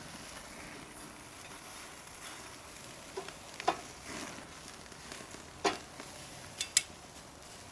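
Beef spider steaks sizzling on the hot grate of a Big Green Egg MiniMax kamado charcoal grill, a steady hiss, with a few sharp clicks as the steaks are turned.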